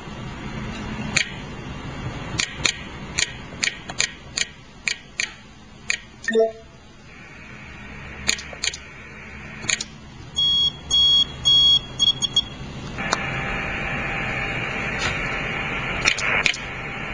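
Short key beeps from a Barrett 2050 HF transceiver's keypad as channel and frequency are entered, then a quick run of higher beeps. About 13 seconds in, the receiver's speaker opens to a steady hiss of HF band noise.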